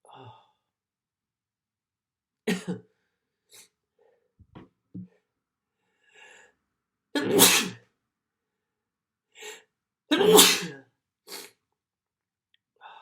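A person sneezing several times: sharp bursts about two and a half, seven and ten seconds in, the last two the loudest, with fainter breaths between.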